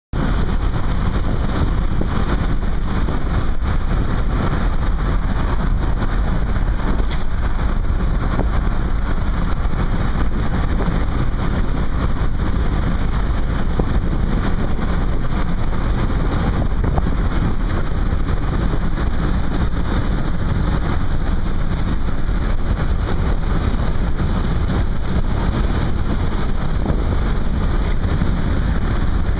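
Steady road and wind noise inside a car's cabin while driving on a highway.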